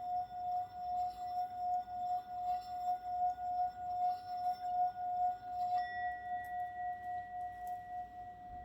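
Singing bowl ringing with one sustained, wavering tone that pulses about three times a second. About six seconds in, a faint click brings out a higher overtone.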